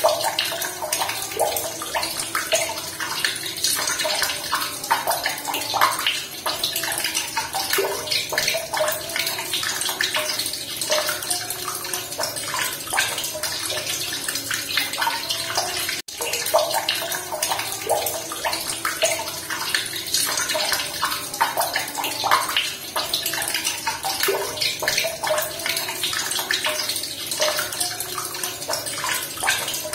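Running water splashing and burbling steadily, with a momentary dropout about halfway through.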